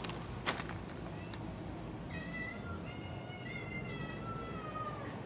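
Cats meowing in long, high, drawn-out calls from about two seconds in until near the end. About half a second in there is a brief sharp crackle from a plastic cat-food bag.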